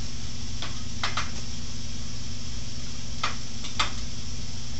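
A few light metal clicks and taps as the tailstock and its parts are handled and fitted onto the lathe bed: a couple about a second in, more between three and four seconds in. A steady low hum runs underneath.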